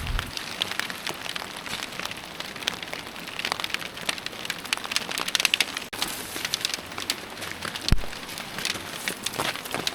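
Steady rain with many close, sharp drop hits, and a single low thump about eight seconds in.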